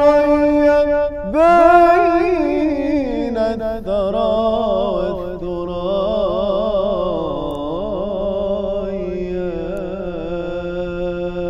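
A man's solo voice singing the closing passage of an Arabic nasheed, drawing the words out into long held notes with a wavering, ornamented pitch.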